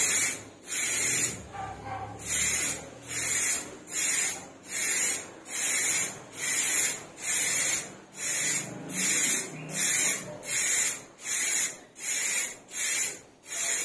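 Aerosol spray-paint can with a trigger grip hissing in short bursts, roughly one a second, laying a first coat of white paint onto a motorcycle helmet.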